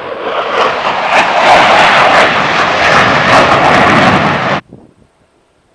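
F-16 jet fighter noise as the jets pass close and low, a loud jet noise with a crackling edge that builds up, then cuts off abruptly about four and a half seconds in.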